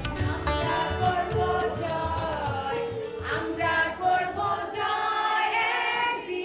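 Background music with voices singing together over a low pulse that fades out about halfway through.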